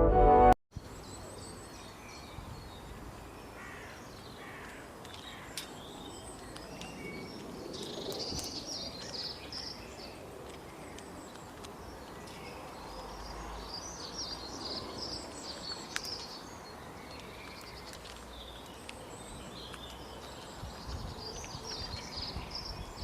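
Forest ambience: a steady background hiss with birds calling in scattered groups of high chirps, busiest in the middle and again about two-thirds through. A brass music passage cuts off half a second in.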